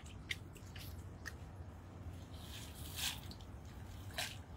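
Wet fishing net being pulled out of the water by hand, with scattered drips and small wet splashes, the loudest about three seconds in, over a low steady rumble.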